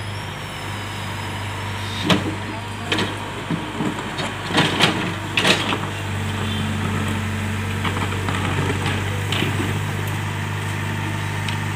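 Diesel engine of a small tracked hydraulic excavator running steadily, with a string of sharp knocks and scrapes in the middle as the steel bucket digs into broken road rubble and stones. About halfway through, the engine note steps up a little under hydraulic load.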